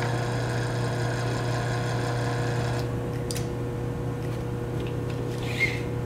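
Duff-Norton MPB6905 mini-pack electric linear actuator's motor running as it retracts the translating tube, then stopping about three seconds in as the retract limit switch cuts it off, with a sharp click just after.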